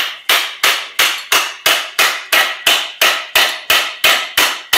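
A hammer striking metal in a steady run of blows, about three a second, each with a short ring. The blows drive the Ford Model T differential out of its rear axle housing.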